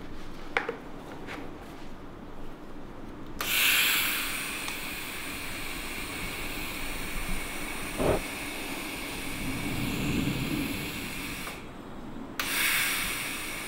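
TIG welding torch on a titanium tube: a steady hiss starts abruptly a few seconds in, with a single knock partway through. It stops briefly near the end and starts again.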